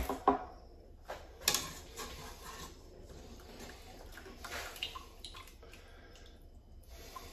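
Cooked rice being scooped out of a pot into a bowl: a few sharp knocks of the utensil against the pot near the start and at about a second and a half, with softer wet scraping between.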